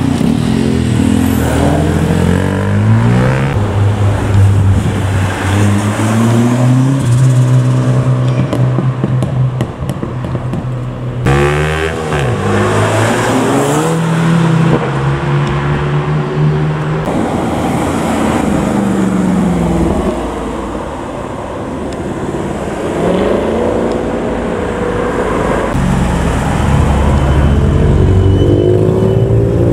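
Cars accelerating hard away one after another, engines revving up through the gears, the pitch climbing and dropping back at each shift. The stills show a white VW Golf GTI Clubsport and, near the end, a black Mitsubishi Lancer Evolution pulling away.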